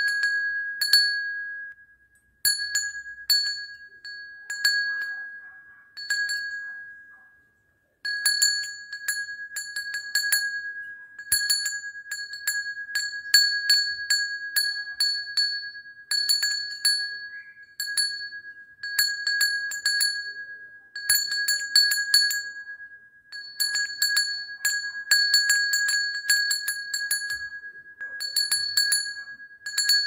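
Small painted metal bell hanging from a chain, rung over and over: its clapper strikes in quick clusters, each strike giving one clear ringing note with bright overtones that fade between strikes. Twice in the first eight seconds it dies away to nothing, after which it rings almost without a pause.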